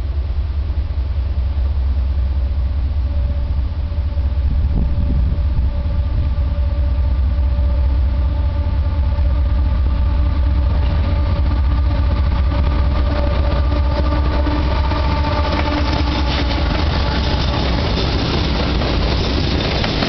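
CSX diesel freight locomotives approaching and passing at the head of an intermodal train: a steady low rumble with faint whining engine tones, then a growing rush of wheel and rail noise over the last several seconds as the locomotives reach the microphone.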